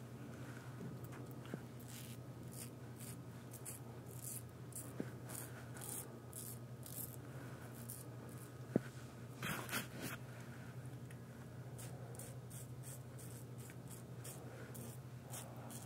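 Merkur 34C double-edge safety razor scraping through lathered stubble in short, quick strokes, a run of brief rasps a few per second, with one sharp click about nine seconds in. A steady low hum sits underneath.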